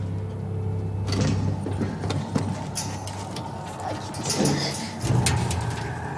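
Film action sound effects: a steady low machinery hum with scattered knocks and clanks, which come thickest near the end.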